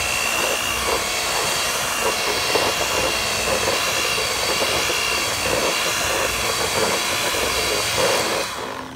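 Electric stand mixer running steadily with a thin whine, its beater churning glaze in a glass bowl. The motor winds down and stops near the end.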